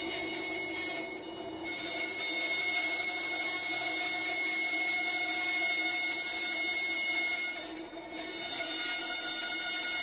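Vertical bandsaw running with a steady whine as it cuts a foam-cored fibreglass panel; the sound dips briefly about a second in and again about eight seconds in.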